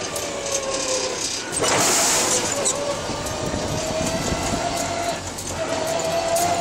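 Forklift truck being driven, giving a steady mechanical drone and rattle with a faint whine that dips and then climbs again. A brief hiss comes about two seconds in.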